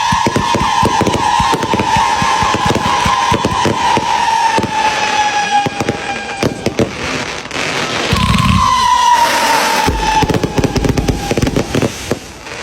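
Fireworks going off: dense crackling with a long whistle slowly falling in pitch, then a low thump about two-thirds through and a second, shorter falling whistle.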